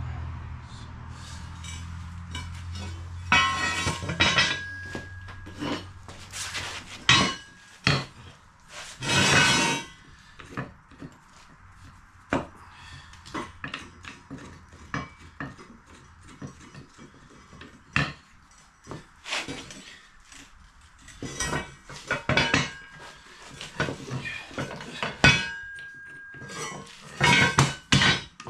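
Steel pieces clanking and knocking against each other, irregular metallic clinks and bangs, some ringing briefly, with a low hum underneath for the first several seconds.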